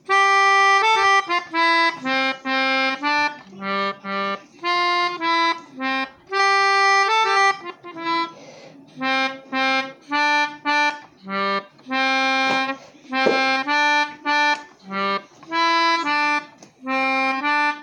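Melodica blown through its mouthpiece tube, playing a simple melody one note at a time with a reedy tone. Most notes are short and separated by brief gaps, and a few are held longer, as the tune is picked out by ear.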